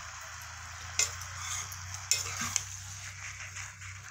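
Chicken curry sizzling in a metal pot with a little water just added, while a metal spoon stirs it and knocks sharply against the pot a few times.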